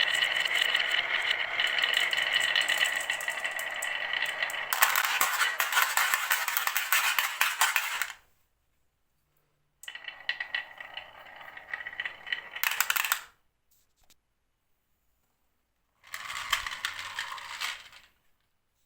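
Marbles rolling and clattering down a HABA wooden marble run, a steady ringing roll that turns into a dense rush of clicks. It stops suddenly, then two shorter runs of rolling and clicking follow after brief silences, the last with a low thump.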